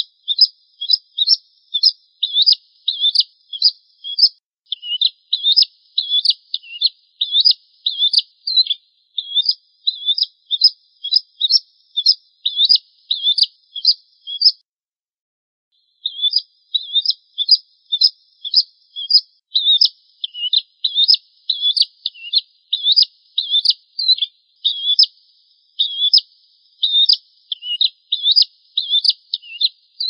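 Prenjak jawa, a small prinia, singing: a brisk run of sharp, high chirps, about two a second, with a short pause near the middle.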